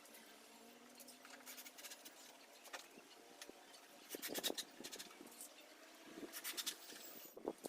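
Intermittent scratching and scraping: a few short strokes separated by quieter gaps, the longest clusters in the second half.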